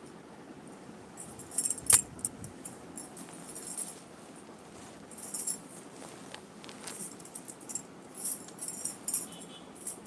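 Light metallic jingling in short clusters, with one sharp knock about two seconds in, as a hand-held phone is moved about.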